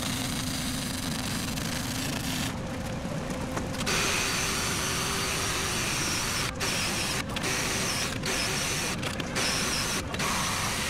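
Welding arc crackling for the first couple of seconds, then a cordless right-angle grinder whining as it is worked over a weld on a steel exhaust pipe in short passes. The pitch sags under load and the tool stops several times.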